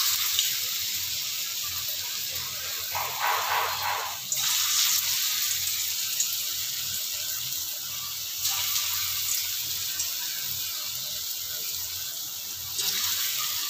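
Raw banana and potato kofta balls deep-frying in hot mustard oil, a steady sizzle that steps up in loudness about four, eight and thirteen seconds in as more balls are slipped into the oil.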